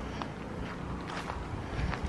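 Footsteps of a person walking, about four steps at a steady pace, over a low steady outdoor rumble.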